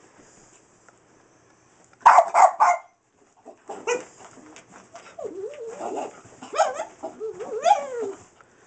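Small Boston terrier–dachshund mix dog barking three times in quick succession about two seconds in, then whining and yelping in rising and falling pitch, excited while chasing a laser-pointer dot.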